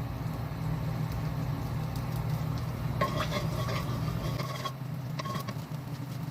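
Cooking oil heating in a frying pan, sizzling over a steady low hum, with a scrape in the pan about three seconds in that lasts a second and a half.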